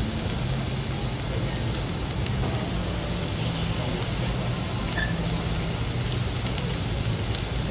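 Food sizzling on a teppanyaki iron griddle, a steady hiss with a low hum underneath.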